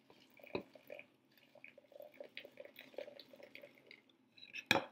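Warm cream trickling from a stainless-steel saucepan into a ceramic mixing bowl while a wire whisk stirs it into the egg yolks, with a string of soft taps from the whisk. A knock about half a second in and a couple of sharper knocks near the end.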